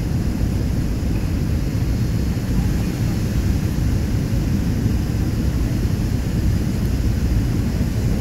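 Airliner cabin noise: a steady low roar of the jet engines and the airflow over the fuselage, heard from inside the passenger cabin.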